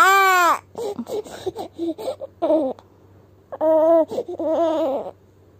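Newborn baby crying: a high-pitched wail that stops about half a second in, then short fussing whimpers, then two more brief pitched cries a little past halfway.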